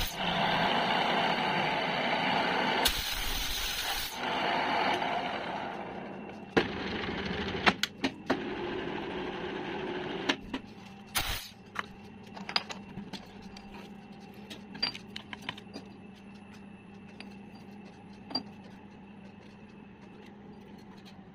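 Milling machine spindle cutting into a steel shaft, a loud steady machining noise for the first few seconds. After that, a quieter steady machine hum with scattered clicks and knocks.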